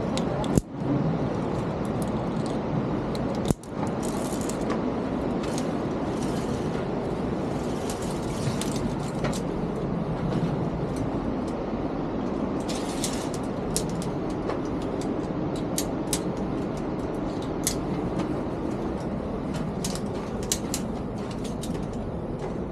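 Steady rushing noise with scattered light clicks and clinks of climbing gear being handled, such as carabiners and backpack buckles. The sound cuts out for an instant twice in the first four seconds.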